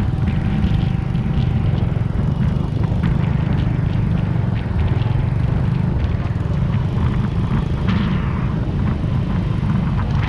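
Small motorcycle engines running at road speed with a steady low rumble, as the Honda Monkey and the camera's vehicle ride alongside each other.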